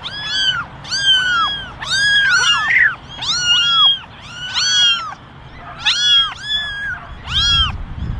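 Cat meowing over and over: short, high, rising-and-falling mews, often in pairs, about two a second, with brief pauses between runs.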